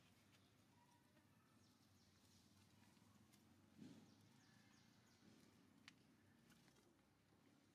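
Near silence: faint outdoor ambience, with a soft thump about four seconds in and a short sharp click about two seconds later.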